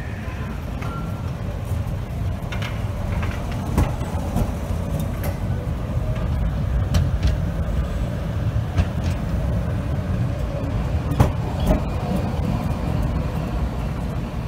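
Articulated electric tram rolling slowly past: a steady low rumble of wheels on rail, with a few sharp clacks, the loudest about eleven seconds in.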